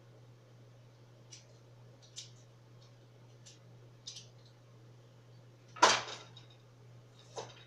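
Kitchen utensils and cookware being handled: scattered light clicks and taps, then a much louder clatter with a brief metallic ring about six seconds in, and a smaller knock near the end. A steady low hum runs underneath.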